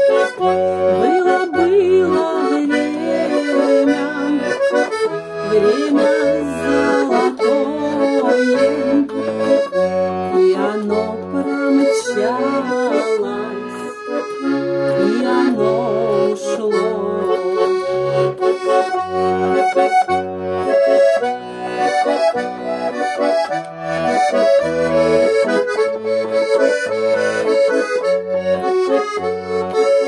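Russian garmon (small button accordion) playing a lively instrumental tune. The melody is on the right-hand buttons, over a steady bass-and-chord accompaniment of about two beats a second.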